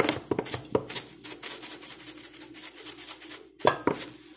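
Dried oregano being shaken from a spice shaker onto potato wedges in a stainless steel bowl: a quick, dense rattle of taps, with a couple of sharper knocks near the end. A faint steady hum runs underneath.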